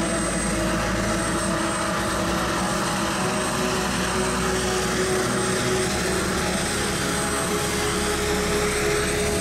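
RC model jet turbine engine running steadily at low power while taxiing: an even rush with a thin high whine.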